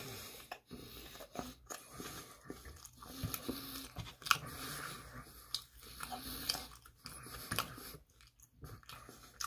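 A person biting into a slice of thick-crust pizza and chewing it, with irregular soft crunches and wet mouth clicks.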